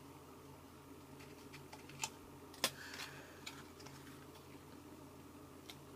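Scattered light clicks and taps of fingers working at a small skincare serum sample that won't open, with a sharper click about two and a half seconds in.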